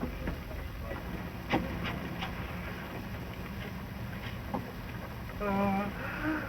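Steady hiss and rumble of an early sound-film track with a few faint clicks. Near the end a man gives a short, wavering 'ahh', the build-up to a hay-fever sneeze.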